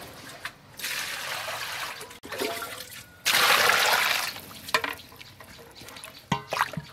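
Water poured from a plastic dipper over a whole raw chicken in a steel basin of water, twice, the second pour louder and longer, then lighter splashing as hands rub the chicken in the water.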